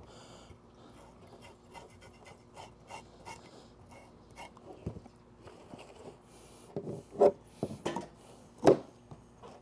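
Back of a fillet knife scraping scales off a pompano on a plastic cooler lid: quiet, rapid rasping strokes, with a couple of louder bumps near the end.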